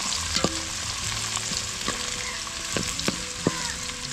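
Shallots and green chillies sizzling in hot oil in a metal pot, stirred with a slotted metal ladle that knocks against the pot about five times with a short metallic ring.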